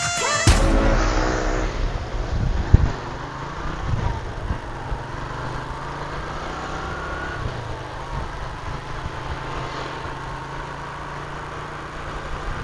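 Motor vehicle engine running steadily on the move, with road and wind noise and a single knock about three seconds in.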